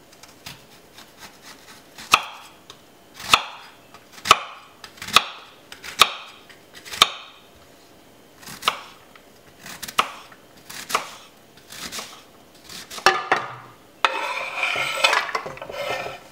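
Kitchen knife chopping a yellow onion on a wooden cutting board, single sharp knocks about once a second. Near the end, a continuous scraping as the chopped onion is pushed off the board into a frying pan.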